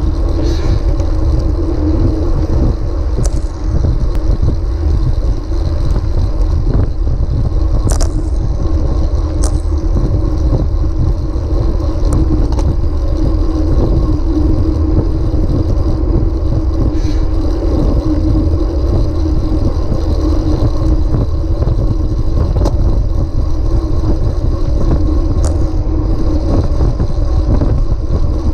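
Steady wind rush and tyre-on-road noise picked up by a bicycle-mounted camera while riding at speed, with a few brief sharp knocks.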